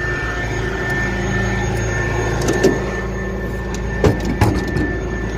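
A truck engine idling steadily, with a short knock about two and a half seconds in and two sharp metal clunks about four seconds in as a side toolbox compartment door on the heavy-duty wrecker's body is unlatched and opened.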